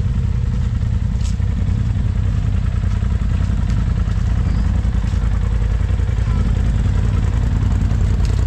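Off-road vehicle engine running steadily, a deep continuous rumble, with a few light clicks over it.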